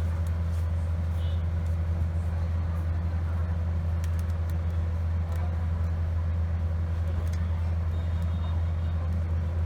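A steady low hum that does not change, with a few faint small ticks now and then.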